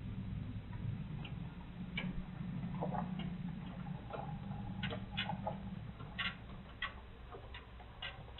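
Pickup truck engine running low as the truck drives off across a gravel driveway; the hum fades about six seconds in. Scattered sharp clicks over it.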